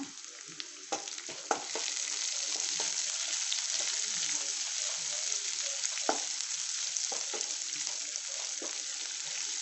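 Sliced onions, curry leaves and chana dal sizzling in oil in a nonstick kadai while being sautéd until soft. A wooden spatula stirs them, with a few taps and scrapes of the spatula on the pan. The sizzle grows louder about two seconds in and then holds steady.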